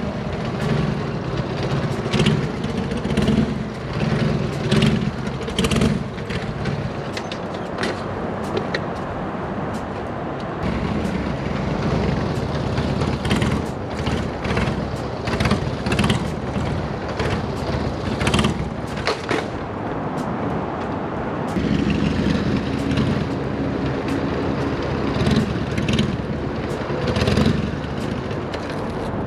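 Motorcycle engine revving up and easing off again and again during wheelie practice, the pitch rising and falling many times.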